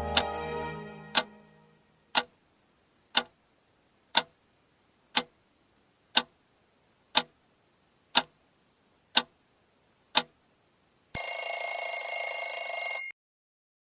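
Countdown timer ticking once a second, eleven ticks, then a loud electronic alarm tone lasting about two seconds that signals the answer time is up.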